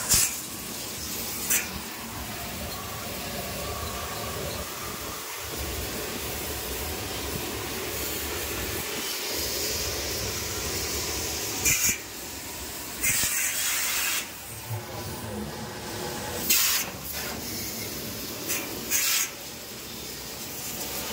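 Pressure washer jet spraying water into the well of a supermarket island freezer: a steady hiss with several short, louder spurts in the second half.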